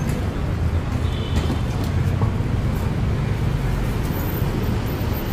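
Road traffic: a steady low rumble of passing engines, with a few faint light clicks.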